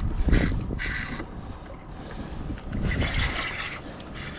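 Spinning reel being worked on a fishing rod: a couple of short mechanical whirring bursts in the first second, with wind rumbling on the microphone.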